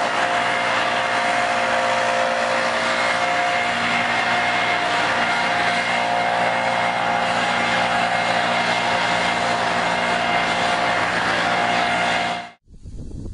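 Backpack leaf blower engine running steadily at a high, constant speed, with the rush of air from its blower tube. It stops abruptly near the end.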